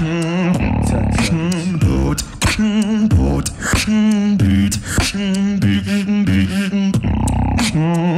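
Beatboxer performing into a handheld microphone through a PA. Deep held bass tones wobble in pitch, cut by sharp snare and hi-hat clicks in a steady beat.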